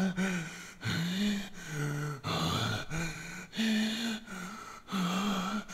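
A man's low voice making a run of short wordless sounds, about eight in a row with brief gaps, each a held pitch that bends up or down.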